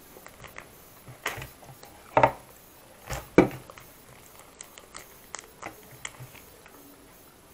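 Butter naan being torn apart by hand: a few short, crackly tears, the loudest about two and three and a half seconds in, followed by lighter crackles as the bread is pulled.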